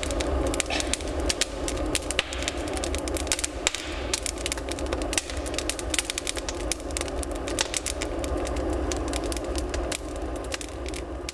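Split firewood logs burning, crackling with many irregular sharp pops, over a steady low rumble.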